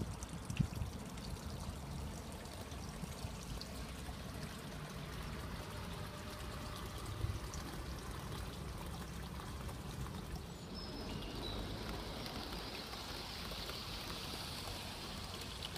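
Large-scale model electric trains running on garden railway track: a steady rolling rumble and hiss of wheels and motors, brightening in the last few seconds as a train passes close.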